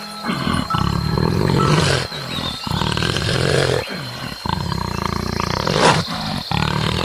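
Lion roaring: a series of deep, rough roars with short gaps between them.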